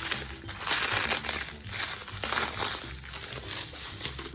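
Packaging crinkling and rustling in irregular handfuls as a gemstone delivery is unpacked by hand.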